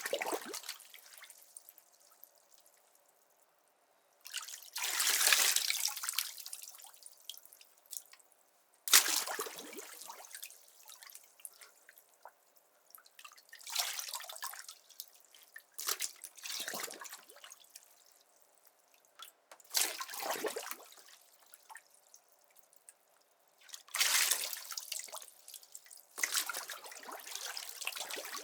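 Bathwater splashing as someone sitting in a bathtub moves through the water: about seven separate splashes a few seconds apart, each fading into dripping and trickling.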